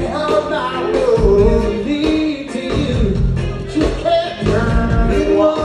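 Live rock band playing a song with singing and guitars, heard from the audience.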